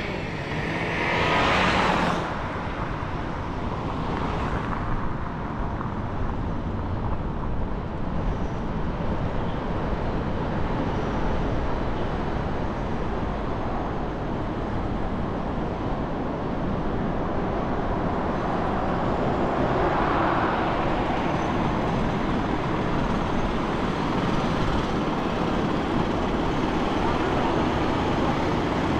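Steady city road traffic and tyre noise from a car driving through city streets, with a vehicle passing close by about a second and a half in and again around twenty seconds in.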